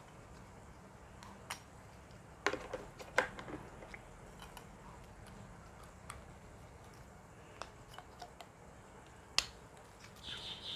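Hard plastic toy parts clicking and tapping together as they are handled and fitted. A few scattered clicks, the loudest two about two and a half and three seconds in.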